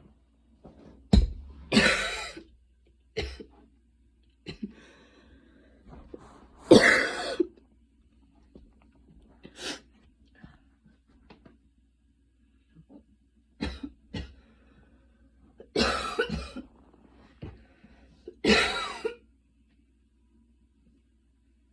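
A woman coughing after a fast run: about ten short coughs at irregular intervals, some single and some in quick pairs, the loudest about seven seconds in.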